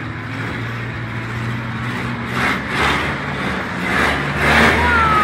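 Monster truck engine running and revving in several louder surges as the truck climbs onto a car. A high whistle-like tone falls in pitch near the end.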